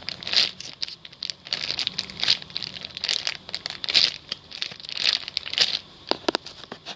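Plastic packaging crinkling in irregular crackles as squishy toys are handled.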